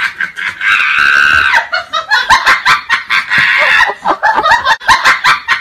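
A person laughing hard in rapid bursts, with a long high-pitched shriek of laughter about a second in.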